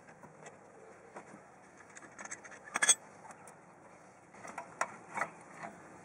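Light metallic clicks and clinks of a steel C-clamp and brake caliper being handled as the clamp comes off the caliper, with a sharper clank about three seconds in and a few more clinks near the end.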